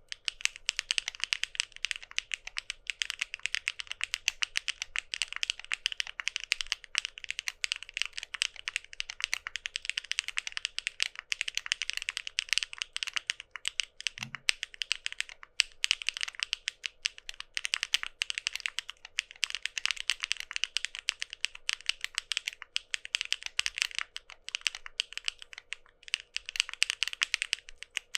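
Continuous fast typing on a mechanical keyboard with lubed Keygeek M1 linear switches, a quick uneven stream of key clacks as the 7-sphere stem tips bottom out, in a deep, loud, resonant tone.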